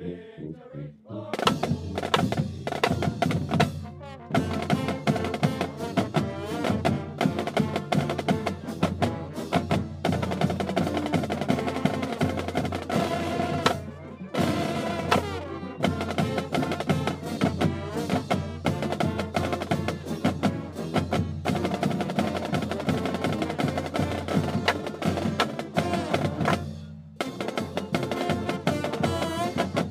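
Marching band playing: saxophones and brass over a drum line. The music starts about a second and a half in and has a few short breaks.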